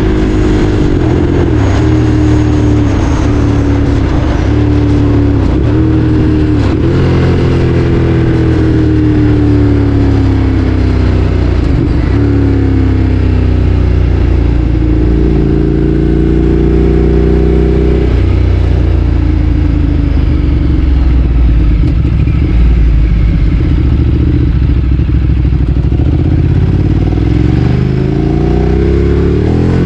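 Ducati Streetfighter 848's L-twin engine under way, pitch climbing and then dropping sharply several times as it pulls through the gears. It eases off in the middle, runs lower for a stretch, and revs up again near the end.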